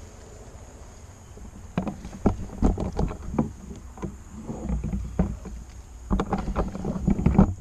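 Irregular knocks, thumps and rustles from a handheld camera being swung about and handled, beginning about two seconds in and loudest near the end, over a dull low rumble.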